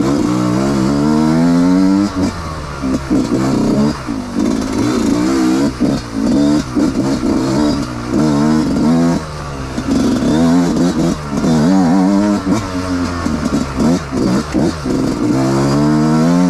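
Trail motorcycle engine revving hard under load as the bike is ridden along a dirt trail. The pitch climbs again and again with each pull of the throttle or gear and falls back in between, with brief lifts off the throttle.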